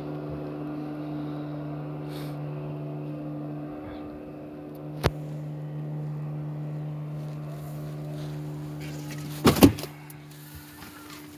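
Steady low hum of a ship's machinery, with a sharp click about five seconds in and a loud clattering knock near the end, after which the hum drops away.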